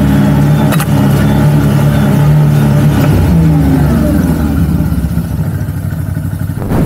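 CFMoto CForce 1000 ATV's V-twin engine running as it is ridden, its pitch rising and falling with the throttle and growing quieter over the last two seconds. A single brief knock comes just under a second in.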